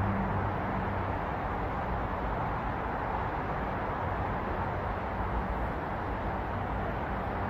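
Steady city traffic noise: a continuous wash of tyre and engine sound from many cars on a busy road, with a low engine hum fading out about half a second in.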